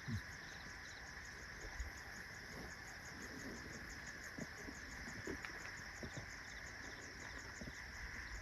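Night insects chirping: a steady high drone with a fast, even pulsing trill above it. A few faint low knocks are scattered through it.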